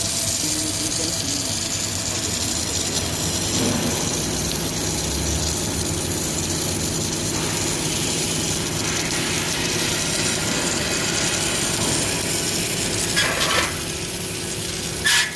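Submerged arc welding running: a steady crackling hiss over a constant machine hum. The sound drops in level near the end, followed by a short sharp click.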